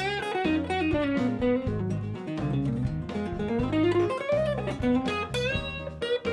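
Strat-style electric guitar playing a blues lead line, with notes bent and slid up and down over low notes held underneath.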